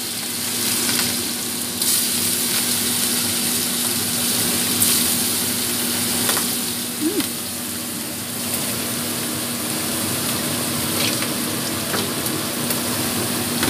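Salted squid pieces sizzling steadily in hot oil in a stainless steel wok, freshly added to the hot oil, with a few sharp pops from spattering oil. A faint steady low hum sits underneath.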